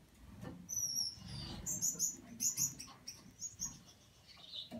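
Gouldian finch nestling giving short, high-pitched squeaks while held in the hand for leg-ringing, with a quick run of them in the middle. Soft rustling of fingers handling the chick underneath.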